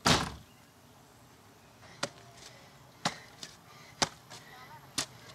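Shovel striking into the ground as a man digs a hole. A louder, longer hit comes at the start, then sharp strikes follow about once a second, four times.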